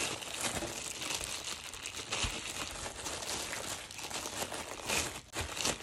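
Clear plastic bag crinkling and rustling as hands unwrap a small radio from it, with irregular crackles throughout.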